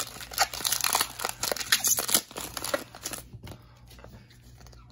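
Foil Pokémon booster pack wrapper crinkling and tearing open by hand. The crinkling stops about three seconds in, leaving faint rustling.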